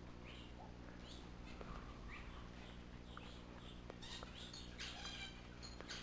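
Several birds calling at once: many short, high chirps and calls overlapping, with a few harsher, buzzier calls about four to five seconds in. A faint steady low hum runs underneath.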